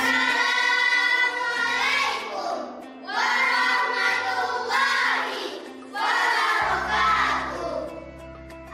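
A group of children singing a song together over a musical backing track, in three phrases, with hand motions keeping time.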